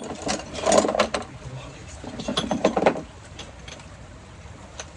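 Metal tools and parts clanking and knocking, with a cluster of sharp knocks in the first three seconds, over a steady hiss of rain.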